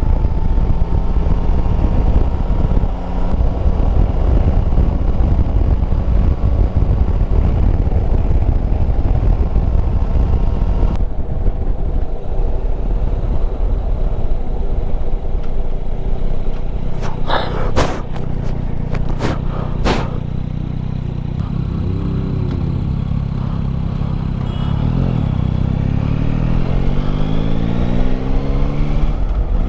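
Yamaha Tracer 9 GT's three-cylinder engine running on the road under heavy wind rush on the microphone. A few sharp clicks come about two-thirds of the way through. Near the end the engine note rises steadily as the bike accelerates.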